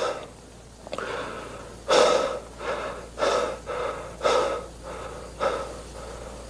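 A young man sobbing in ragged, breathy gasps, about eight of them coming every half second to a second.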